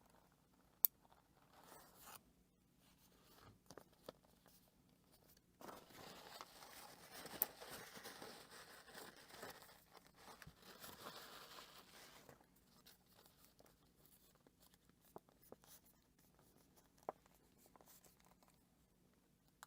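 Quiet handling of paper: a soft rustling and rubbing for several seconds in the middle, with a few light clicks.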